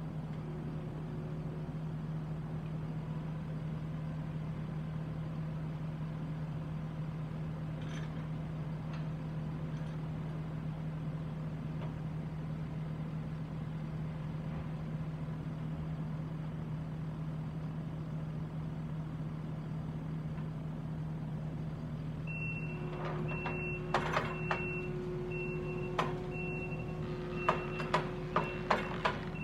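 Kubota skid steer's diesel engine running steadily while it pulls a tractor out backwards. About three-quarters of the way in its reversing alarm starts beeping in uneven on-off bursts, with a string of sharp knocks and cracks near the end.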